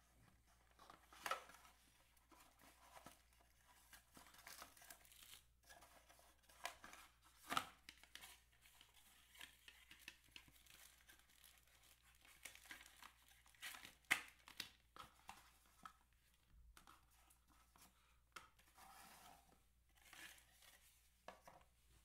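Faint, irregular rustling and crinkling of packaging being handled: earphones, plastic-bagged accessories and papers lifted out of a cardboard box. A few louder sharp clicks and knocks stand out, one about a second in, one near the middle and one about two-thirds of the way through.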